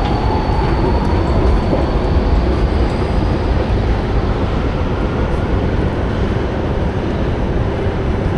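Loud, steady rumble of an underground M4 metro station, with a faint whine rising in pitch over the first few seconds as a metro train runs through below.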